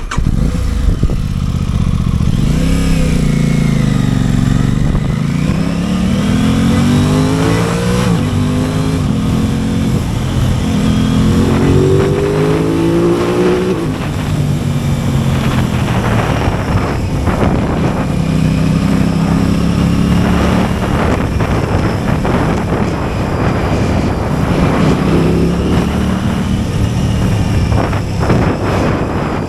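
Aprilia sport motorcycle engine pulling away and accelerating through the gears, its pitch climbing and dropping back at each upshift over the first half, then holding a steadier cruise. Wind noise buffets the camera's built-in microphones as speed builds.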